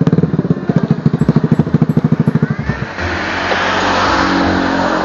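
Motorcycle engine running at low revs with an even pulsing beat of about ten a second. About three seconds in, the beat gives way to a steadier engine hum under a rush of wind as the bike gets under way.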